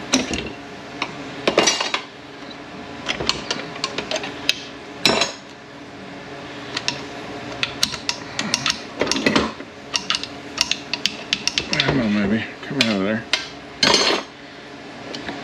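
Metal fluid tubes being worked loose and pulled out of a Ford 4F50N transaxle's aluminium case: irregular clinking and clanking of metal on metal, with two short wavering squeaks late on.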